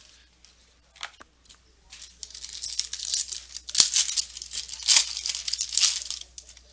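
Foil wrapper of a trading-card pack being torn open and crinkled by hand: a loud run of ripping and crackling starting about two seconds in, with two sharp snaps.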